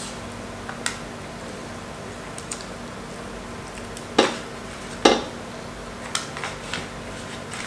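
Fried chicken being torn apart by hand over a plastic plate: scattered sharp clicks and crackles, with two louder knocks about four and five seconds in.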